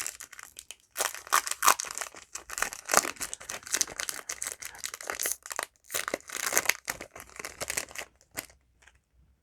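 Yu-Gi-Oh! foil booster pack wrapper crinkling as it is torn open and handled, a dense run of short rustles and crackles that stops about eight and a half seconds in.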